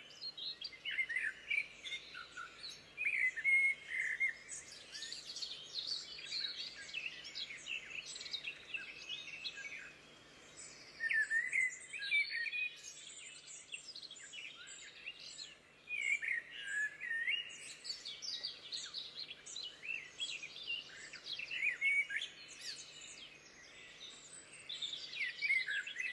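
Wild songbirds singing, a dense chorus of quick chirps, warbles and trills from several birds at once, easing briefly about ten seconds in and again about fifteen.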